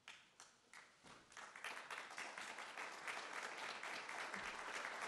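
Soft audience applause: a few scattered claps at first, then from about a second in, steady clapping from many hands.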